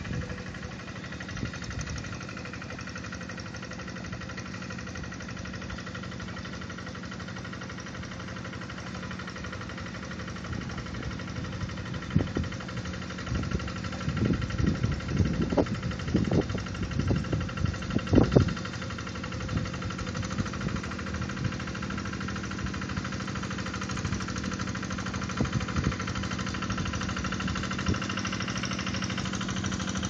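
Two-wheel hand tractor's single-cylinder diesel engine running steadily while plowing a flooded rice paddy, with a cluster of irregular louder knocks between about 12 and 19 seconds in. It grows a little louder near the end as it comes closer.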